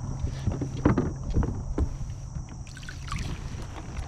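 Gear being handled on a plastic fishing kayak: a run of short knocks and bumps as a hand rummages in a soft-sided bag, over a low rumble.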